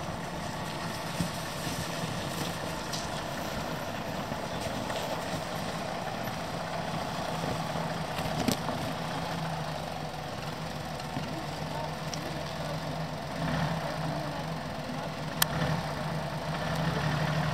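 Toyota Land Cruiser 80-series engine running steadily at low revs as the SUV creeps over rocky ground, with two sharp knocks partway through.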